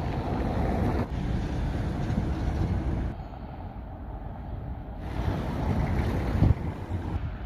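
Wind rumbling on the microphone over outdoor street ambience. The sound changes abruptly several times as the recording cuts between clips.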